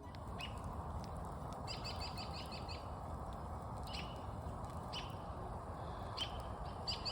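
Small birds chirping: quick runs of short, high, repeated notes about two seconds in and again near the end, with single chirps between, over a steady low background noise.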